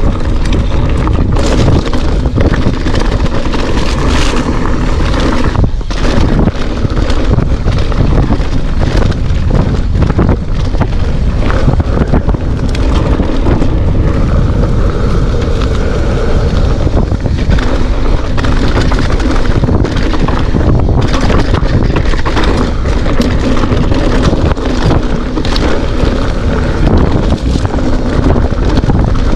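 Wind buffeting the microphone on a mountain bike descending a rocky dirt singletrack, with the tyres crunching over loose stones and the bike knocking and rattling over bumps.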